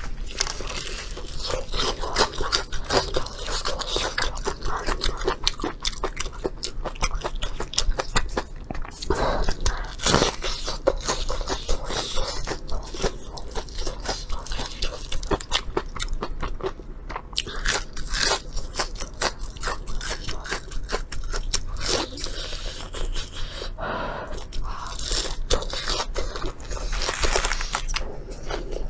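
Steady crunching, biting and chewing of crisp deep-fried food, most likely fried skewers and fried chicken cutlet, with many quick crackling bites.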